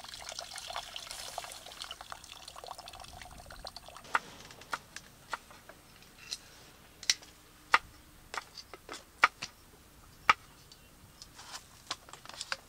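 Water running from a jerrycan tap into a camping pot of rice for about four seconds, then a series of sharp clicks and knocks as the pot is handled and its lid is fitted and clamped shut.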